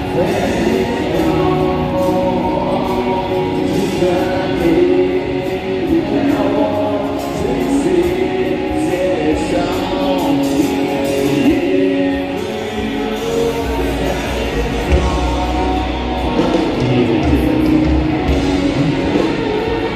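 Loud rock music with a singer, heard in the open over the band's full sound; a deep low rumble joins about two-thirds of the way through.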